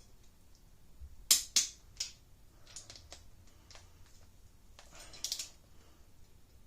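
A few sharp clicks and knocks of hand tools being handled on the engine: two loud ones about a second and a half in, fainter ones after, and a quick cluster about five seconds in.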